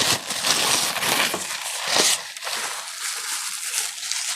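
Close-miked chewing and mouth sounds of a person eating, irregular crackly bursts that come loudest near the start and again about two seconds in.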